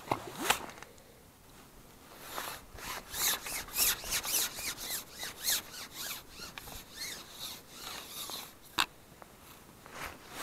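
Hands and waterproof jacket sleeves rubbing and scraping against a carbon fishing pole as it is handled: a couple of knocks at the start, then a run of short scratchy strokes, and a single sharp click near the end.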